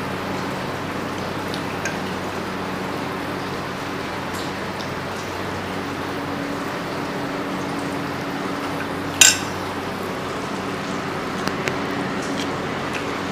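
Eating by hand: fingers squishing and mixing rice with curry on plates, with small clicks of utensils and one sharp clink about nine seconds in, over a steady background hum.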